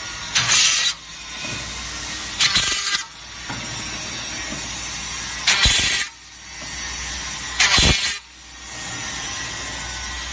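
A twin-spindle CNC ladder drilling machine at work on an aluminium ladder rail: a steady machine noise, broken four times, about every two seconds, by a short loud rushing burst as the spindles cycle through the holes.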